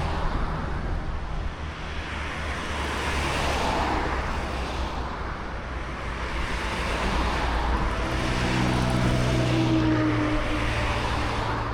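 Motor vehicles passing by, their noise swelling and fading every few seconds, with a steady engine hum joining about eight seconds in.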